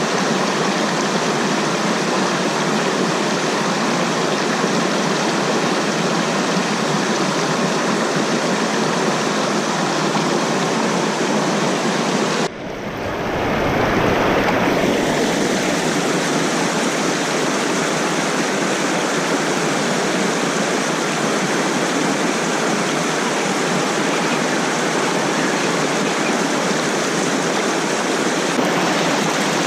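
Rushing water of a small mountain stream and waterfall, steady throughout. About twelve seconds in, the sound briefly drops and turns muffled with a low rumble before the rush comes back.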